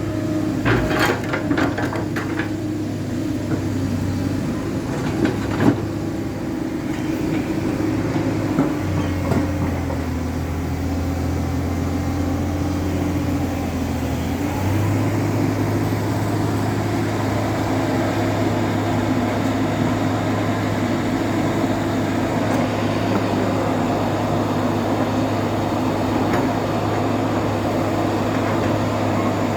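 A heavy machine's diesel engine running steadily. Its pitch drops for several seconds about a third of the way in, then rises again and holds. There are a few sharp metallic clanks in the first few seconds.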